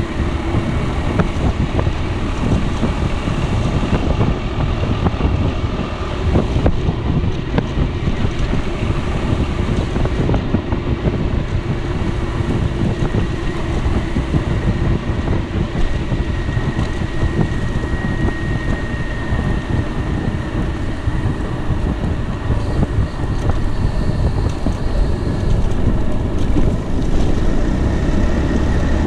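Piaggio Beverly 300 scooter's single-cylinder four-stroke engine running steadily on the move, with wind buffeting the microphone.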